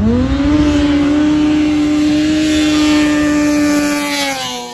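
Snowmobile engine revving up sharply at launch on a grass drag strip, then holding a steady high pitch at full throttle. About four seconds in, the pitch dips a little and the sound fades as the sled passes.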